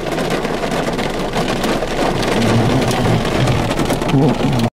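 Heavy rain pelting the car's windshield and body: a dense steady hiss made of many small rapid taps. Faint low wavering tones join in during the second half, and the sound cuts off abruptly at the end.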